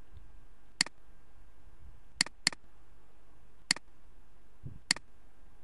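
Computer mouse button clicking: five sharp, separate clicks, two of them close together like a double click.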